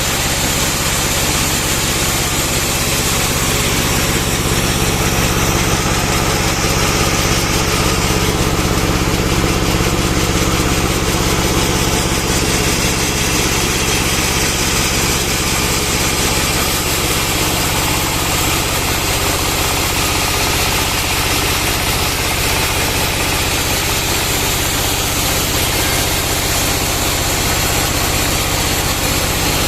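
Bandsaw sawmill running steadily, with the even hum of its driving engine.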